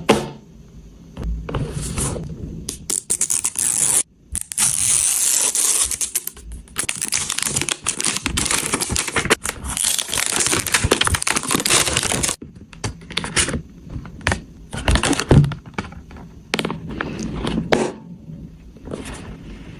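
Toy packaging being torn open and handled: plastic and cardboard tearing, crinkling and scraping, with many sharp crackles. The tearing runs long and dense through the middle, then breaks up into shorter crinkles and clicks.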